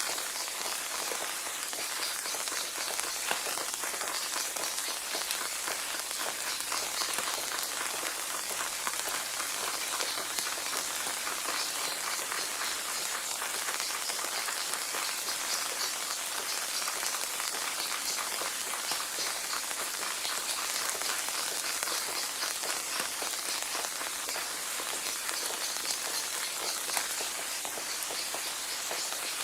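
Steady rain falling on a hard surface, a dense even patter of many fine drops.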